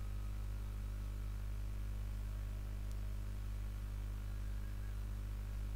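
Steady low electrical hum with a layer of hiss, with nothing else standing out.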